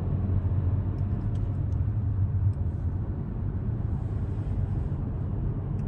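Audi Q3 driving in fourth gear on a road test after a gearbox repair: a steady low engine and road hum heard from inside the car, easing slightly about two seconds in.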